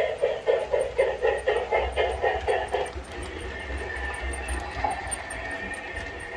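Recorded locomotive sound played from a small MP3 player in a model train: an even beat of about four pulses a second stops about three seconds in. It gives way to a steadier rushing sound with a thin high tone.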